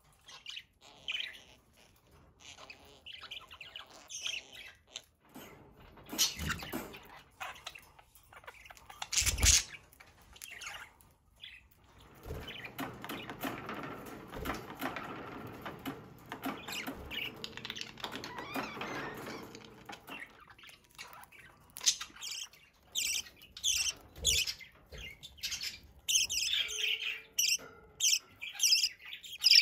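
Pet budgerigars chirping and squawking, with scattered calls at first and a fast run of chirps near the end. A few sharp knocks come early on, and a steady hiss lasts several seconds in the middle.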